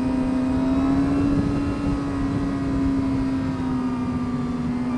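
2009 Suzuki GSX-R600's inline-four engine running at steady high revs under way. Its note dips slightly in pitch in the later part, over a steady rush of wind.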